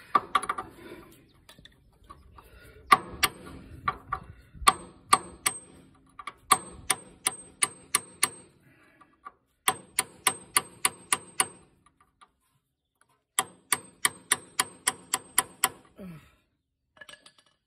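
Hammer blows on a steel chisel set against the rounded-off, over-tightened oil drain plug of an aluminum oil pan, knocking it round to break it loose. The blows come in runs of about three a second with short pauses between, each with a sharp metallic ping.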